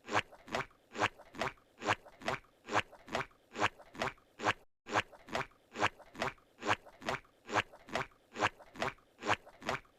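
Squidward's cartoon walking sound effect: squishy footsteps in a steady loop, about two steps a second.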